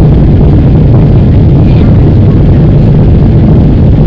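Boeing 777 cabin noise during the climb after takeoff, heard at a window seat: a loud, steady low rumble of the jet engines and the air rushing past the fuselage.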